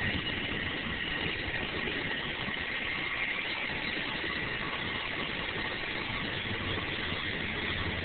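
Angels Flight funicular car running steadily down its incline on the haulage cable: an even rumbling hum with a faint high whine.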